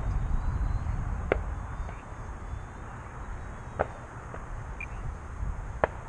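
Wind buffeting the microphone in a low rumble, strongest at the start, with three sharp clicks about two seconds apart.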